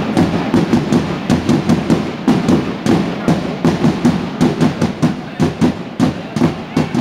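Handball fans drumming a fast, steady beat, several strikes a second, with crowd voices underneath.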